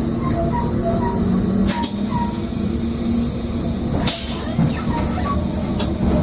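A train running, heard from inside the driver's cab: a steady low rumble, with two short hisses about two and four seconds in.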